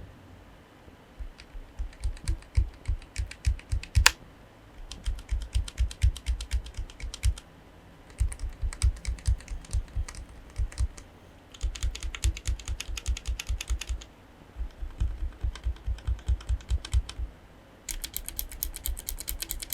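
Bare Gateron mechanical keyboard switches without keycaps, pressed repeatedly in six runs of rapid clicks with short pauses between, one switch type after another. The last run has a sharper, brighter click.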